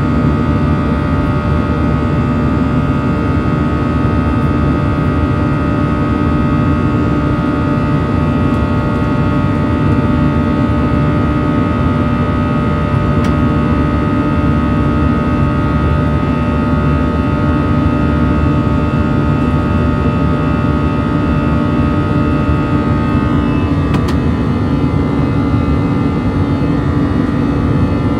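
Airbus A321's CFM56 turbofan engines at climb thrust, heard inside the cabin over the wing: a steady low rumble under a buzz of several steady tones, which shift slightly in pitch about 23 seconds in.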